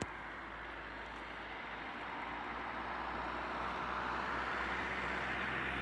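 Car on the move: steady road and engine noise that grows gradually louder, with a short click at the start.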